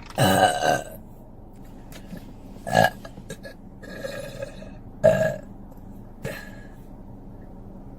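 A woman burping repeatedly. A long, loud belch comes right at the start, shorter ones follow about three and five seconds in, and there are a couple of fainter ones between them.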